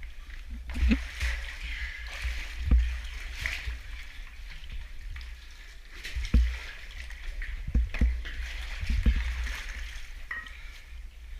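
Cave stream water running and splashing, with a steady gurgle and about five dull thumps spread through it.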